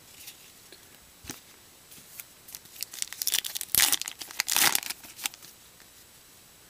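A 2014 Topps Gypsy Queen baseball card pack wrapper being torn open and crinkled by hand. A run of crackling tears starts about two and a half seconds in and lasts about three seconds.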